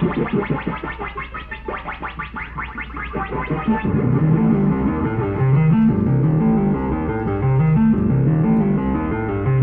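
Synthesizer music: fast, evenly repeating arpeggiated notes for about four seconds, then a lower bass line stepping between notes.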